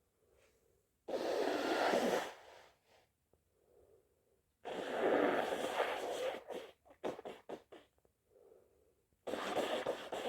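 A person blowing their nose hard three times, each a long noisy blast of one to two seconds, with soft breaths between. A quick run of crinkling clicks follows the second blow, like tissue being handled.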